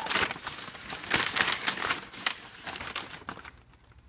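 A plastic mailer bag and tissue paper crinkling and rustling as a cardboard shoebox is pulled out of them. The rustling dies down about three seconds in.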